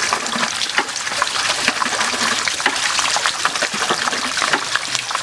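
Hot oil sizzling and crackling in a wok as a whole deep-fried bird is lifted out of it.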